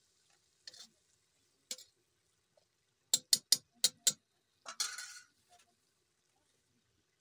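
A metal spoon scraping and stirring in a metal wok, with a few scattered clicks. About three seconds in come five quick, sharp metal taps, the spoon knocked against the wok's rim, followed by a short scrape.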